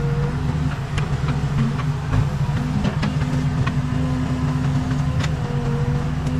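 Case 580 Super K backhoe loader's diesel engine running steadily, with a wavering whine over the rumble and scattered sharp clicks and knocks.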